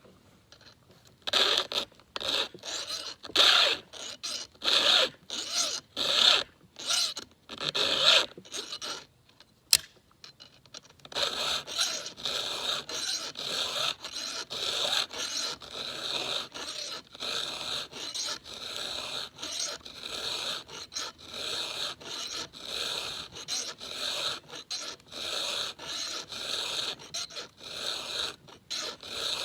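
A file scraping across the cutters of a new Husqvarna X-Cut chainsaw chain that has never been sharpened, in repeated strokes. After a brief pause with a single sharp click, the strokes come faster and closer together.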